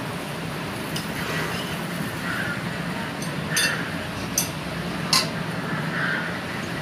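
Metal cooking utensils clinking against a steel kadai of curry: three sharp clinks in the second half, over a steady background hiss with a faint low hum.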